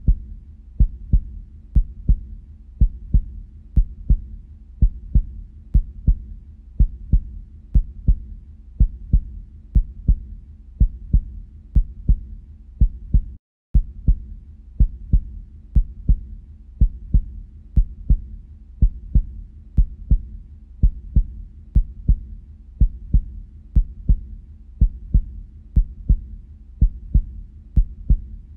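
Heartbeat sound: a steady lub-dub, one double thump about every second, over a low steady hum. It drops out briefly a little under halfway through.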